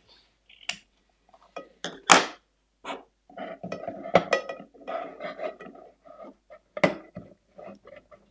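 Eggshells and folded kitchen paper being handled and pushed into a round metal cake tin: light clicks and knocks of shell against the tin with paper rustling, and sharper knocks about two seconds in and again near seven seconds.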